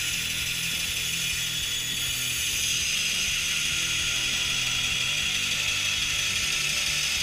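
Vertical bandsaw cutting through a metal flat bar: a steady, high-pitched cutting noise from the blade biting the metal, over the saw's low running hum. The blade is one the user calls messed up.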